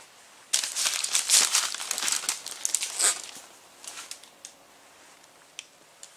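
Masking paper and tape wrapped around a tyre crinkling and rustling as they are handled, a dense crackle starting about half a second in and lasting some two and a half seconds, followed by a few faint ticks.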